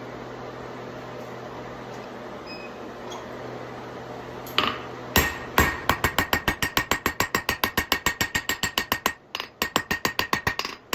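A steady hum, then about five seconds in a hammer starts striking the hot 3/8 in round steel bar on the anvil: a fast, even run of ringing blows, about five a second, with a short break before it resumes. The steel's back end is being drawn out long and thin to make the snail's curled back.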